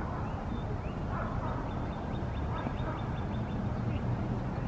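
Wild birds calling over a steady low rumble. About two seconds in comes a fast trill of short, high, falling notes lasting about two seconds, with a few lower calls around it.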